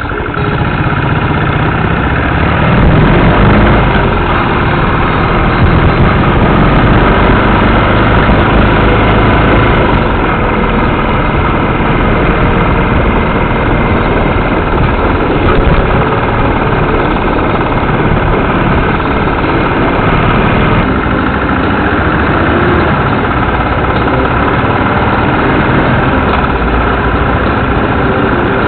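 Royal Enfield Classic 500's single-cylinder engine running steadily under way, with a dense rumble of wind and road noise over the microphone. It grows louder about two to three seconds in.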